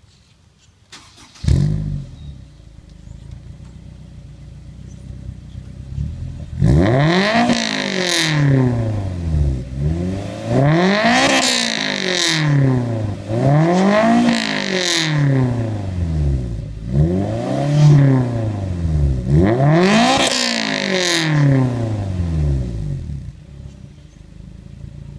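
Honda S2000's 2.0-litre four-cylinder through a JVT header, high-flow cat and Invidia Q300 exhaust. It starts about a second and a half in and settles to idle. From about six seconds in it is revved five times, each rev rising sharply in pitch and falling back, before returning to idle near the end.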